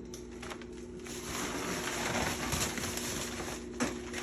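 Plastic bags and food packages rustling and being handled while a fridge is cleared out, with a single knock near the end, over a steady low hum.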